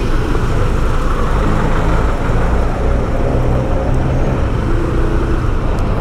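Road traffic close by: a vehicle engine running with steady road noise and a low hum.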